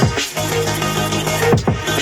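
Electronic dance music with a heavy, sustained bass line, played through a Sony SRS-XB43 Bluetooth speaker. Deep bass drops slide sharply down in pitch at the start and again about a second and a half in.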